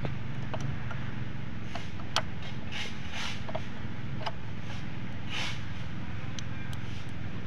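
Light metallic clicks and taps from a clutch release bearing being handled and fitted on the input-shaft sleeve inside a manual transmission's bell housing, over a steady low mechanical hum.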